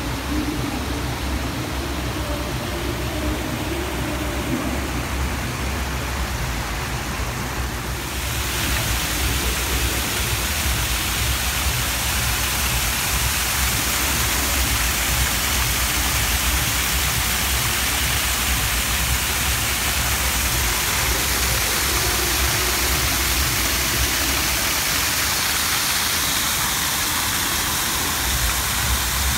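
Steady rush of water from an artificial rock waterfall splashing into a pond, getting louder and brighter about eight seconds in, with a low rumble underneath.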